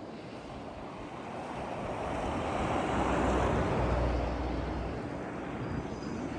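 A vehicle passing on a snowy highway: its tyre and engine noise swells to a peak near the middle with a low rumble, then fades, over wind.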